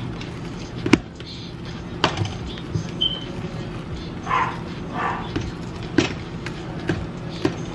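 Silicone spatula stirring and scraping mashed potatoes in a stainless steel mixing bowl, with sharp knocks of the spatula against the bowl a few times.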